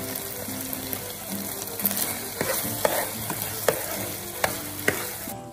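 Beef strips in a thick sauce sizzling in a nonstick frying pan while being stirred with a spatula, which knocks and scrapes against the pan several times from about two seconds in. The sizzling cuts off abruptly near the end.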